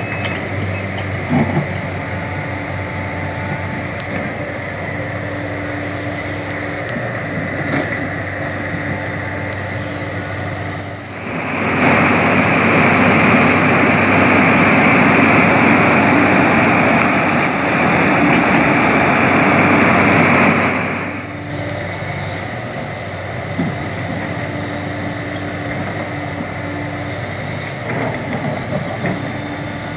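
Sumitomo SH350 LHD hydraulic excavator's diesel engine running steadily while it digs rocky soil. For about ten seconds in the middle the sound jumps to a much louder, rougher engine noise, starting and stopping abruptly.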